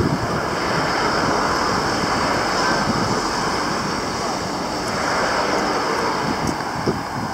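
Steady rushing roadside noise from traffic, with wind buffeting the microphone; it swells twice.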